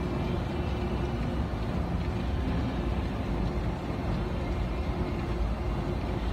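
Steady low rumble of a long metro escalator running, with a faint steady hum over it.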